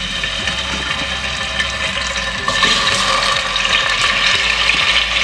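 Raw boneless chicken cubes sizzling as they are dropped into hot oil in an aluminium pressure cooker. The sizzle grows louder about two and a half seconds in as more pieces go in.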